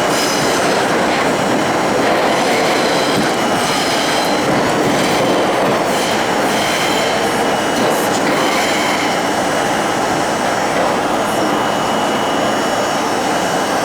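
R32 subway car running at speed through a tunnel: a steady loud rumble of wheels and running gear, with thin high wheel-squeal tones and a few rail-joint clicks.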